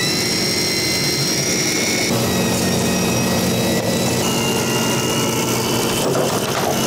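Electric deep-drop fishing reel whining steadily as its motor winds line up from deep water with a fish on, its pitch shifting a couple of times, over the low drone of the boat's engine.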